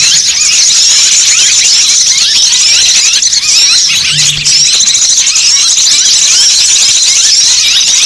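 Bird-lure recording of a dense flock of small birds chirping and twittering all at once, many rapid high calls overlapping without a break. A short low hum sounds about four seconds in.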